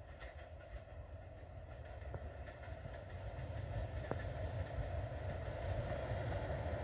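Regional passenger train approaching, its low rumble and wheel noise growing steadily louder, with a few faint clicks from the rails.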